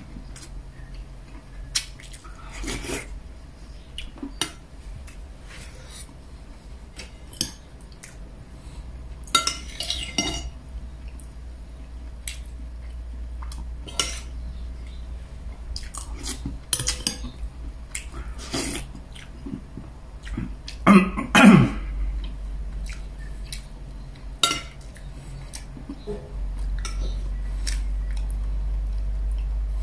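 Metal spoon and fork clinking and scraping against a glass soup bowl and a ceramic plate during eating, in scattered short clicks, with some chewing. About two-thirds of the way through there is a brief louder throat noise.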